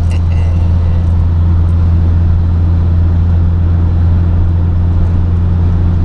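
Steady low engine drone and road noise heard from inside a vehicle's cabin while cruising at highway speed.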